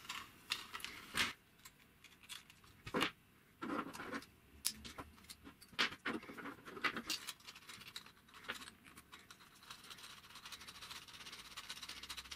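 Hard 3D-printed plastic parts clicking and knocking together as they are fitted by hand, with small metal hardware (a nut and a threaded rod) rattling against them. In the second half the sharp clicks give way to a fainter, more continuous scraping rattle as the threaded rod is worked into the clamp.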